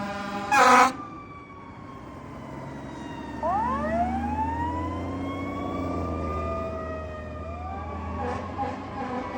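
Fire apparatus responding: a steady horn tone ends in one loud short blast about half a second in. About three and a half seconds in, sirens wind up in a rising wail and then slowly fall, over a low truck-engine rumble. Short horn blasts come near the end.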